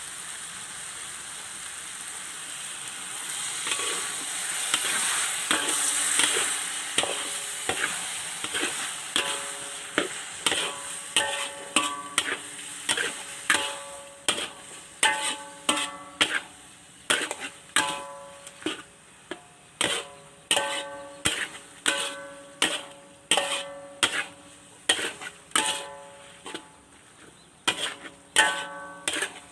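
Papaya curry sizzling in a pot while it is stirred, swelling a few seconds in. From about ten seconds in, plucked-string music with a steady beat takes over, and the cooking fades beneath it.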